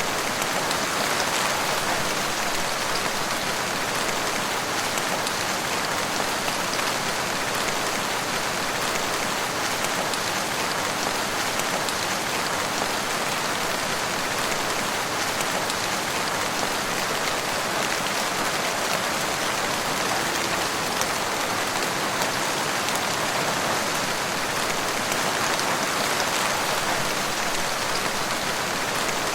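Steady rain falling in a wood, an even patter of drops on the surfaces around, with no breaks or changes.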